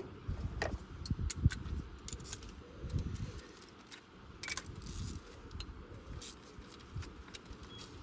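Irregular metallic clinks and light knocks of hand tools being handled in the engine bay, as a wrench is taken up to remove the compression tester adapter.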